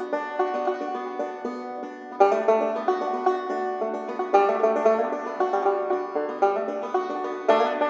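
Background music of quick plucked string notes, getting fuller and louder a little over two seconds in.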